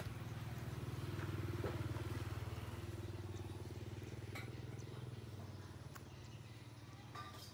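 A small engine running with a low, steady hum that swells over the first two seconds and then slowly fades, with a few faint clicks.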